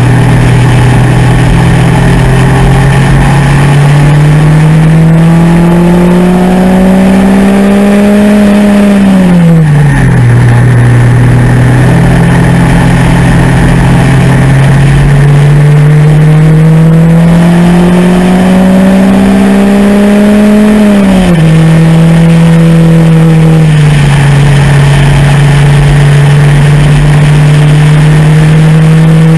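MEV Rocket's engine running hard at track speed. Its pitch climbs slowly under acceleration, then falls sharply twice, about nine and twenty-one seconds in, with another smaller drop a few seconds before the end.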